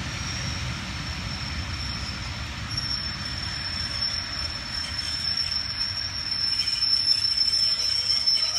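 A passenger train's coaches rumbling along the rails. From about three seconds in, a steady high-pitched wheel squeal joins the rumble and holds, and the sound grows louder near the end.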